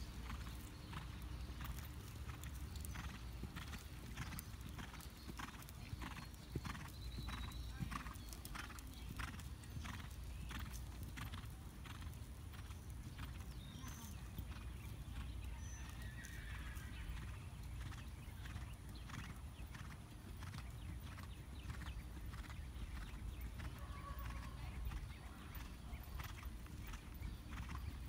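Hoofbeats of a Rhinelander gelding moving on a sand arena: a steady rhythm of about two to three soft beats a second through roughly the first half, fading after that, over a constant low rumble.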